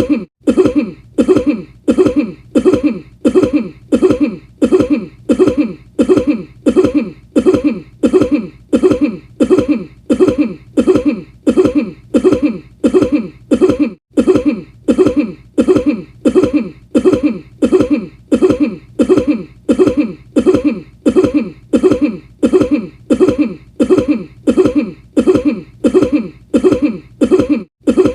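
A person's cough repeated over and over as a loop: the same short cough about three times every two seconds, without a pause.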